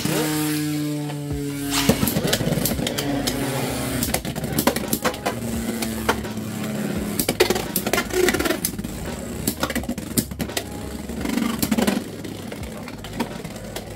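Two Beyblade X tops, HellsChain and HellScythe, spinning in a clear plastic stadium. Just after the launch there is a steady whirring hum that sinks slightly in pitch. From about two seconds in, the whirr runs on with frequent sharp clicks and clacks as the tops strike each other and the stadium.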